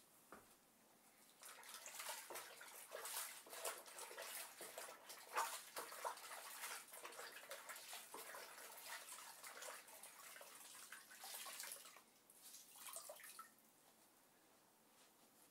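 Faint splashing and rubbing of a wet microfiber cloth being worked in water during window cleaning, irregular for about ten seconds, with a short last burst.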